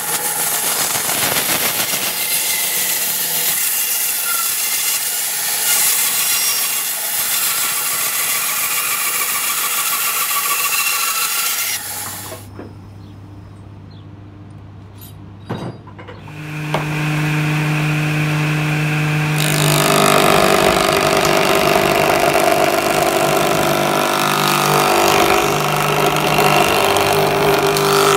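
Band saw cutting lengthwise through a log, a steady loud sawing noise that stops about twelve seconds in. After a quieter stretch of low motor hum, a table saw runs with a steady whine from about seventeen seconds and cuts through a wood slab.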